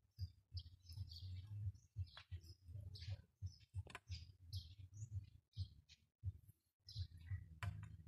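Small birds chirping: many short, high calls in quick succession, over a faint low rumble that comes and goes.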